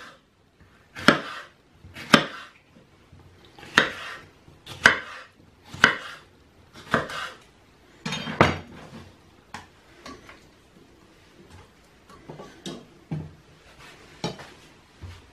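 Kitchen knife chopping a red bell pepper on a wooden cutting board, with sharp knocks about once a second. From about eight seconds in, a longer scrape and then softer, scattered clicks and knocks follow as the pepper strips are moved into a steel pot.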